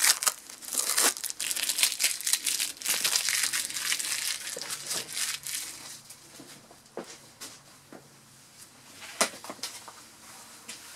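Crinkling, rustling handling noise close to the microphone: dense crackles for the first several seconds, thinning after that to scattered clicks and taps.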